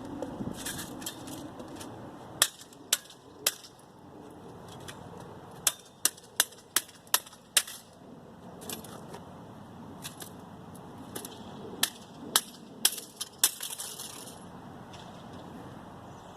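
Sharp metallic knocks and clicks from scrap metal being taken apart by hand, in three runs: a few strikes, then a quicker series of about two to three a second, then another cluster near the end.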